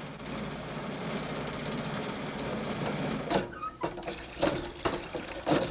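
Radio-drama sound effect of an old, crippled car running: a fast, steady rattling chug. About halfway through, several sharp knocks and clatters join it.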